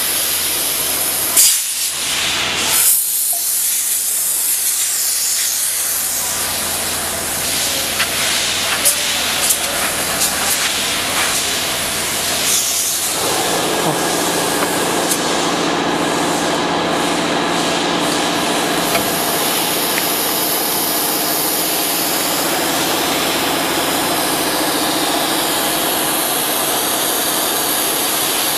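Compressed air hissing from an air-hose nozzle as it blows sawdust off a freshly routed MDF door panel, with scattered ticks of flying chips; the hiss grows fuller and steadier about halfway through.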